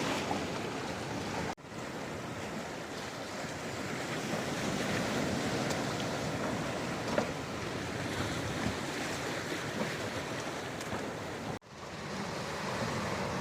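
Surf breaking against a rocky shore in rough seas, with wind buffeting the microphone; the sound drops out briefly twice.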